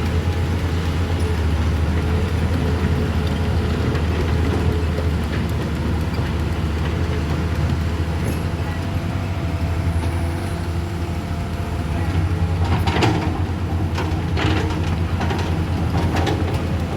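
A large vehicle engine running with a steady low rumble. In the last few seconds there is a series of sharp rattling knocks.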